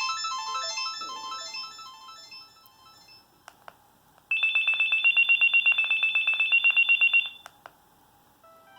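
Kyocera SE47 cell phone playing preloaded ringtones through its small speaker. A melodic ringtone tune fades away in the first three seconds. After a couple of faint clicks, a fast-pulsing, high electronic trill rings for about three seconds and stops.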